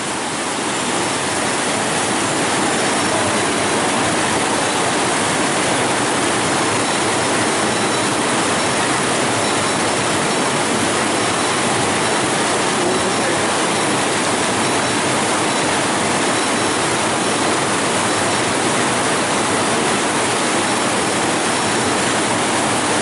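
Rushing river water through rapids: a loud, steady roar of white water.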